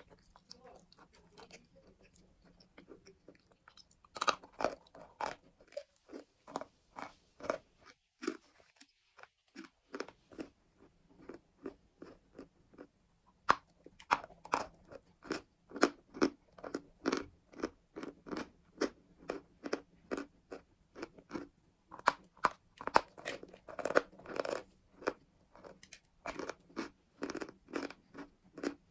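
A person biting and chewing crunchy sweet chalk close to the microphone, a rapid run of sharp crunches with a short pause about nine seconds in.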